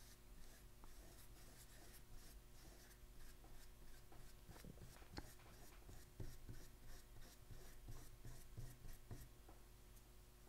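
Faint, soft strokes of a wet watercolour paintbrush brushing across paper, repeated many times over a low steady room hum.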